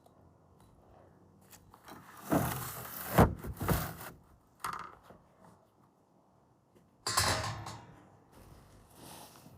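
Handling noises: scraping and rustling bursts, a sharp knock about three seconds in, and another scraping burst about seven seconds in.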